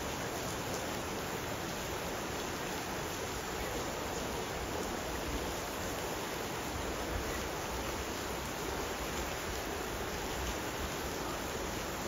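Steady, even rush of a fast-flowing river, with no breaks or changes.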